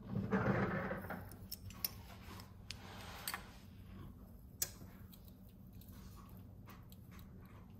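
Dried rosemary leaves being shaken from a glass shaker jar: a short rattling shake in the first second, then scattered light clicks and taps, one sharper click a little past halfway, over a low steady hum.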